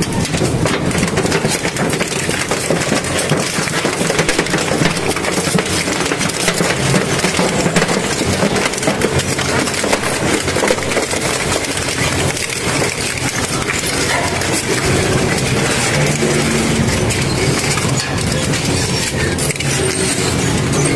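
Heavy industrial crusher or shredder running under load, its engine droning steadily beneath dense, continuous crunching and cracking of material being broken up.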